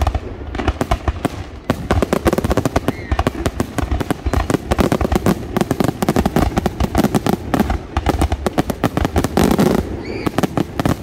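A dense barrage of aerial fireworks bursting, many sharp bangs and crackles a second with no pause between them, typical of a display's finale.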